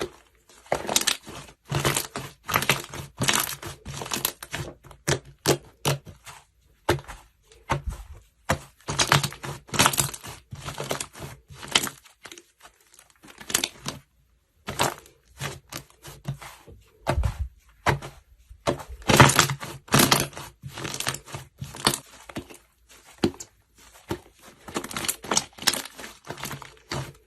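Slime being squeezed and pressed by hand, making irregular runs of sticky crackles and pops in short clusters with brief pauses between them.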